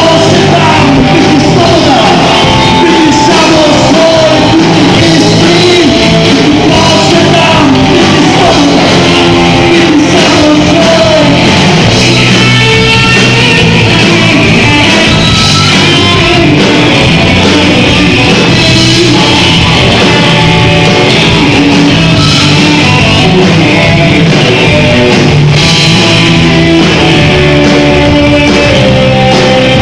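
A rock band playing live and loud: a male singer over electric guitars and drums.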